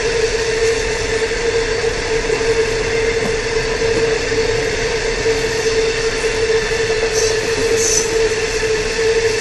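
Long freight train of open hopper wagons rolling steadily past, a continuous noise of wheels on rail with a steady whining tone running through it.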